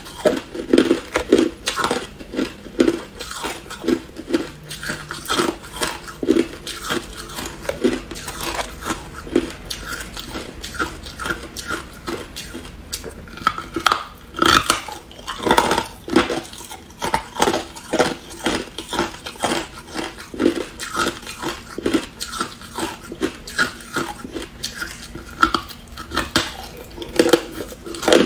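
Chunks of hard crushed ice being bitten and chewed: a steady run of sharp crunches, about two a second, with a louder cluster about halfway through.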